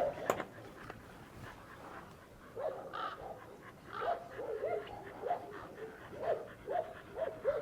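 A dog whimpering in a run of short high whines, several a second, with a pause of about two seconds near the start.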